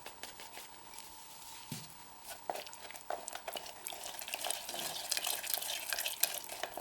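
A stirring stick scraping and clicking inside a children's rubber ball, mixing gypsum plaster and water into a thick slurry. The stirring is sparse at first, then busier from about two and a half seconds in.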